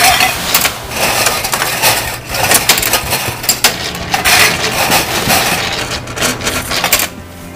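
Motor-driven tin can seaming machine running as tins are sealed: a steady motor hum under loud, irregular metallic clicking and clattering, cutting off about seven seconds in.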